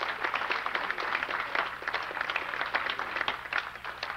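A roomful of people applauding: many hands clapping steadily, easing off a little toward the end.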